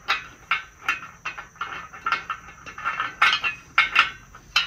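Steel bolt being turned by hand into the steel corner bracket of a metal bed frame: a run of quick metallic clicks and rasps, about three a second.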